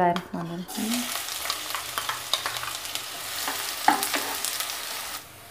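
Chopped onions sizzling as they drop into hot oil in a non-stick wok, with a spatula scraping and stirring them through the oil. The sizzle starts suddenly about a second in and cuts off just before the end.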